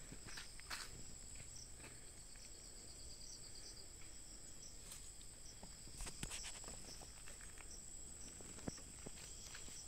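Night insects chirring in a steady high tone, with a second insect calling in short pulses about once a second. Scattered footsteps and rustles on the forest floor, a few a little louder about five and six seconds in.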